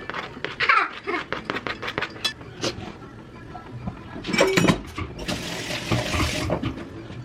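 Kitchen work: a run of small clicks and knocks of utensils and pots, then a louder metallic clatter, followed by water running from a tap for about a second and a half.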